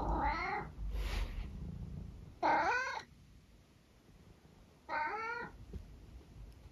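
Senior tabby cat meowing three times, short calls about two and a half seconds apart.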